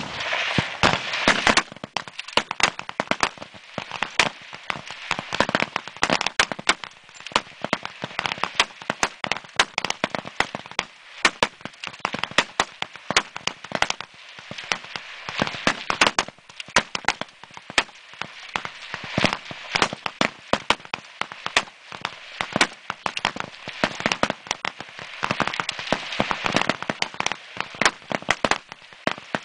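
Many rifles firing along a firing line in a rapid-fire string, the shots overlapping, several a second, with no pause.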